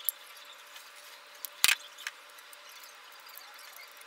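A few sharp clicks of bucket tappets being set into their bores in a bare aluminium cylinder head. The loudest click comes about one and a half seconds in.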